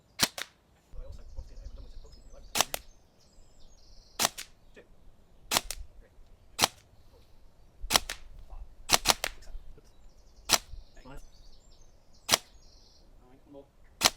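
Tokyo Marui next-generation recoil (NGRS) electric airsoft rifle firing single shots: about eleven sharp cracks, one to two and a half seconds apart, two of them close together about nine seconds in.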